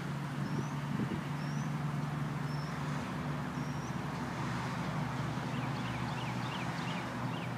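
Birds chirping over a steady low rumble: a short rising chirp about once a second, then a quicker run of sliding chirps near the end.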